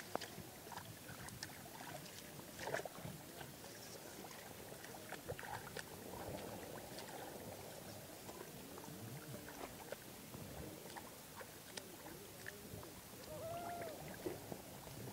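Hands and legs working through shallow muddy water and grass: soft sloshing and squelching with scattered small splashes and clicks. A few short rising-and-falling tones come in about two-thirds of the way through and again near the end.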